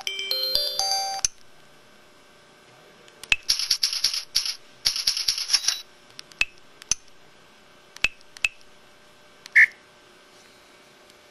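Samsung SPH-X7509 mobile phone sound effects: a short stepped electronic melody ends about a second in, followed by two bursts of rapid electronic ticking tones, several single key clicks, and one short beep.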